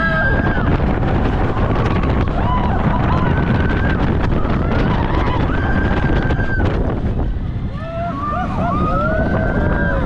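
Roller coaster train running along the track at speed, with wind rushing over the microphone and a heavy rumble. Riders scream and yell now and then over the noise, with the longest stretch of screaming near the end.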